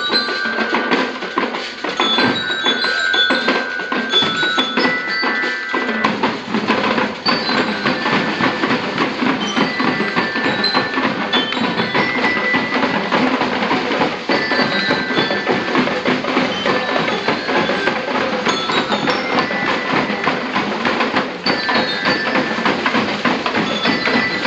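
Marching band playing: snare and bass drums beat a steady, dense rhythm throughout, with bell lyres ringing out short melody notes over the drums.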